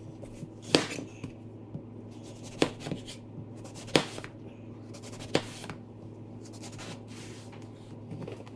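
Large kitchen knife slicing through an eggplant and knocking down onto a plastic cutting board: four sharp knocks, roughly a second and a half apart, with fainter cutting sounds between them, over a faint steady hum.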